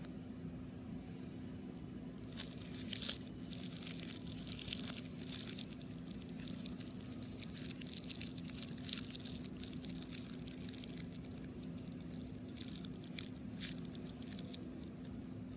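Crinkling and crackling from a clear object worked in the hands close to the microphone, in irregular bursts, over a steady low hum.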